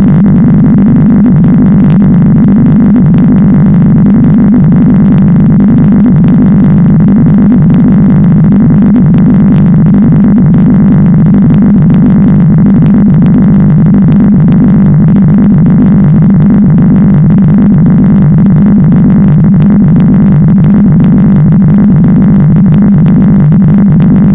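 Very loud, heavily distorted electronic buzzing noise that holds steady without changing pitch, with a rapid crackle running through it.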